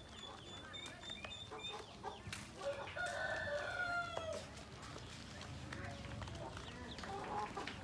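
Ducklings peeping, with high thin calls in quick succession over the first two seconds. About three seconds in, a rooster crows once in the background, one long call whose pitch drops at the end.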